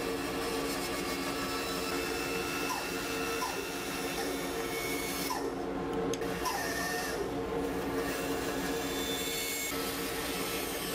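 Bandsaw running with a steady hum while its blade cuts through a wooden plane blank, with a hiss of cutting. About halfway through the hiss drops away for about a second as the blade clears the wood, then the cutting starts again.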